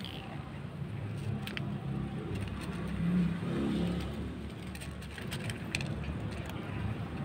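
Low rumble of a vehicle engine and road traffic, swelling about halfway through, with faint crisp clicks scattered over it that fit two cats crunching dry kibble.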